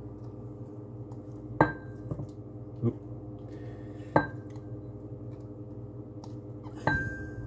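Hard plastic kitchen containers knocking together: three sharp clinks, each with a brief ring, and a few lighter knocks between them, over a steady low hum.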